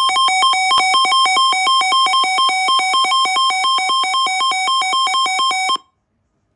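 Emergency alert tone heralding a severe thunderstorm warning on NOAA Weather Radio: a loud electronic beep that warbles rapidly between two high pitches, cutting off sharply near the end.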